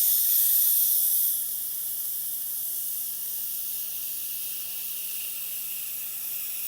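A diamond grading plate pressed against a spinning Tormek wet grindstone to grade its surface, making a steady, loud hiss over the faint hum of the machine's motor. The hiss starts suddenly and is strongest for the first second or so.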